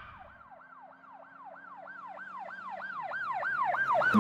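Emergency-vehicle siren in yelp mode, a fast rise-and-fall wail repeating about three times a second and growing steadily louder, as if approaching.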